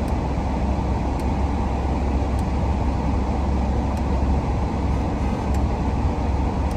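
Steady low rumble inside a car's cabin: engine and road noise.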